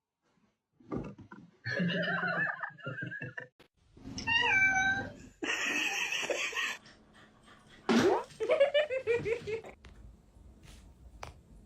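Cats meowing in several separate calls, including a clear meow about four seconds in and a drawn-out rising, wavering yowl about eight seconds in, with a short burst of hissing noise between them.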